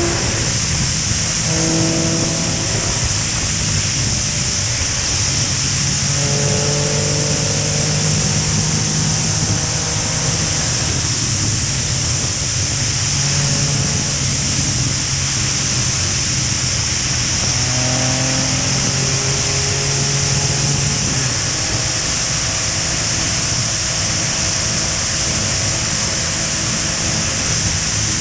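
Steady wind rush over a helmet-mounted camera at highway speed, with motorcycle engines running at steady cruising revs beneath it, their pitch shifting slightly now and then.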